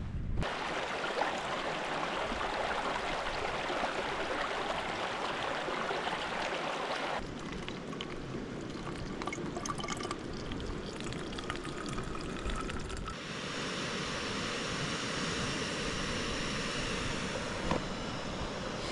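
Water poured from a bottle into a camping water filter, trickling and splashing through it. It is a steady watery hiss that changes character about seven seconds in and again about thirteen seconds in.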